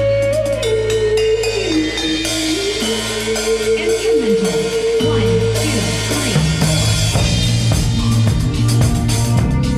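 Band music: a drum kit keeps the beat under a held melody line that steps and slides down in pitch, and a pulsing bass line comes in about six seconds in.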